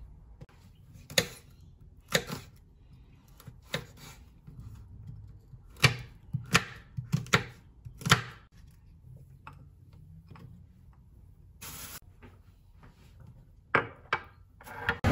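Chef's knife chopping onion and red bell pepper on a bamboo cutting board: sharp, irregular knocks of the blade on the wood, coming in short runs with pauses between. Near the end a plastic bag rustles.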